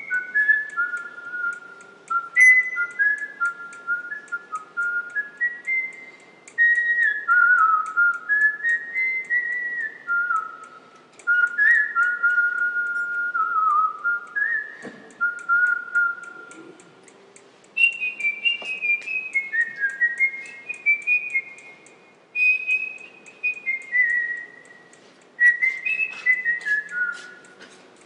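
A person whistling a slow tune: one clear note at a time, stepping up and down in short phrases, with some notes held for a second or more.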